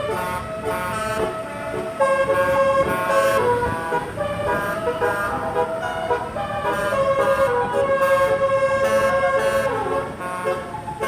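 Bus 'telolet' basuri horns playing a tune of stepped, multi-tone notes. Near the end a long held note slides down in pitch.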